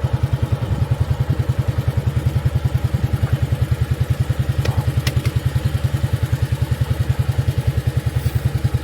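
Small boat engine running steadily, with an even, fast low throb.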